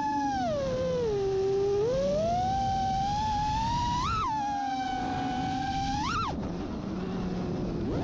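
Mini FPV quadcopter's motors whining, the pitch rising and falling with the throttle. The whine dips, climbs, spikes sharply at about four and six seconds in, then falls abruptly to a low hum.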